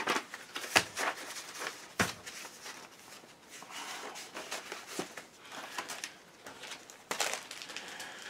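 Paper and card being handled: sheets and a folded chart rustling and sliding, with a few light knocks.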